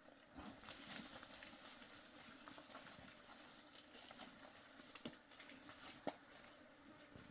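Faint, irregular clicks and knocks over a low steady hiss, the sharpest about a second in and about six seconds in.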